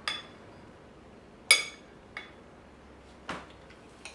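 Metal spoon clinking against a ceramic bowl while scooping soft pudding: about five short, ringing clinks, the loudest about a second and a half in.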